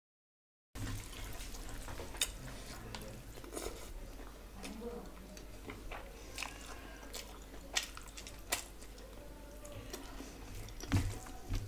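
Close-miked eating sounds: chewing rice and curry, with scattered sharp wet clicks and lip smacks every second or so. A split second of dead silence at the start.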